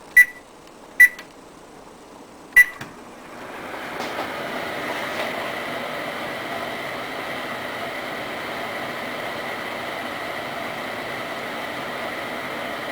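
Microwave oven keypad beeping three times as it is set. About three seconds in, the oven starts and runs with a steady hum.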